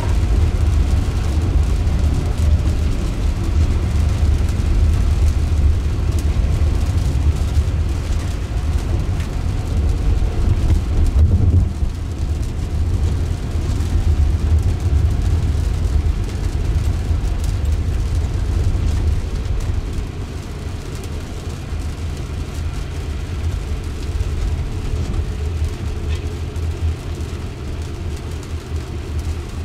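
Cabin road noise in an electric Jaguar I-Pace driving on wet pavement: a steady low rumble of tyres over the rain-soaked road, with a hiss above it. The rumble eases and grows quieter about two-thirds of the way through.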